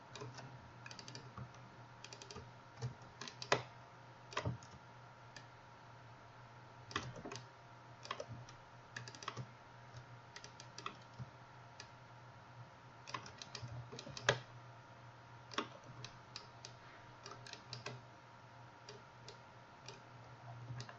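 Irregular clicks of a computer mouse and keyboard, some single and some in quick little runs, a few of them louder, over a faint steady hum.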